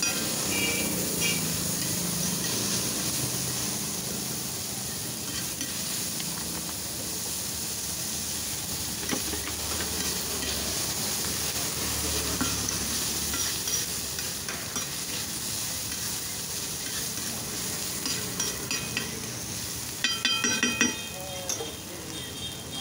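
Chopped onions and tomatoes sizzling on a large flat iron tawa while a metal spatula stirs and scrapes them across the hot plate. Near the end there is a quick burst of sharp metal clinks from the spatula.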